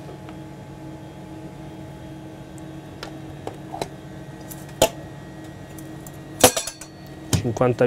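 Steady hum of the space station's fans and equipment. Over it come a few clicks and clacks of food packs being handled at the rehydration station, the loudest a sharp clack about six and a half seconds in. A short wavering pitched sound follows near the end.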